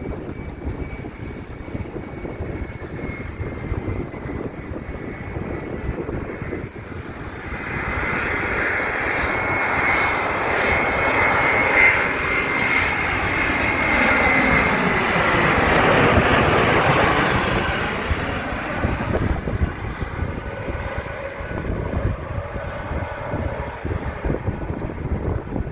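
An airliner's engines passing by: a high whine at first, then the engine noise swells over about ten seconds to its loudest about two-thirds of the way in and fades away. Wind buffets the microphone throughout.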